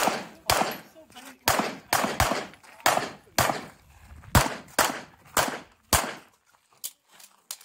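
A CZ 75 SP-01 pistol fired in a fast string of about a dozen echoing shots, some in quick pairs. The shots stop about six seconds in.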